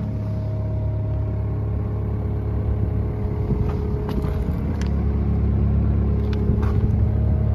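Yanmar diesel engine of a Doosan DX85R-3 mini excavator idling steadily, an even low hum, with a few faint clicks near the middle.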